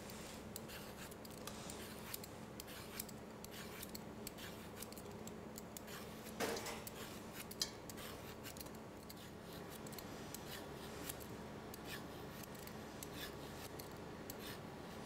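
A hand vegetable peeler scraping the skin off a pear in many short, quick strokes, with one brief louder sound about six and a half seconds in.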